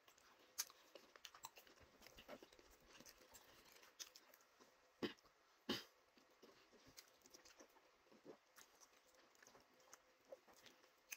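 Faint eating sounds of fufu with ogbono soup eaten by hand: soft wet mouth clicks and chewing, with two louder smacks about five and six seconds in.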